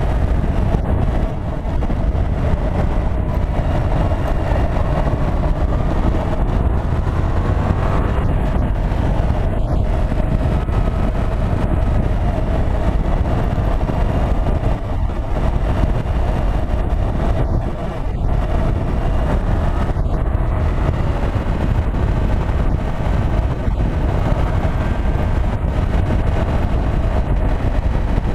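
Steady wind buffeting on a bike-mounted camera's microphone at road speed, with the 2016 Yamaha FZ-07's parallel-twin engine running underneath.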